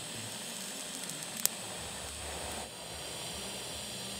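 TIG welding arc hissing steadily, with one sharp click about a second and a half in.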